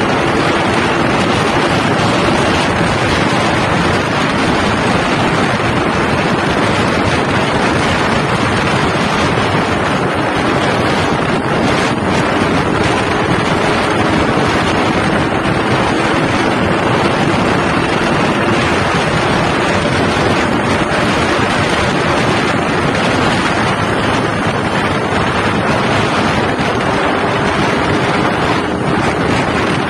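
Wind buffeting the microphone of a motorcycle-mounted camera at riding speed, loud and steady, with the Yamaha RX-King's two-stroke single-cylinder engine faintly audible underneath, its note drifting slightly in pitch as the speed changes.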